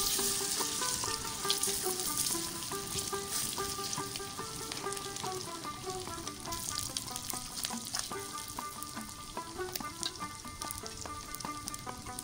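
Battered fish pieces sizzling and crackling as they deep-fry in hot oil in an iron kadai, loudest at the start as more pieces go into the oil and easing off after. Light background music plays underneath.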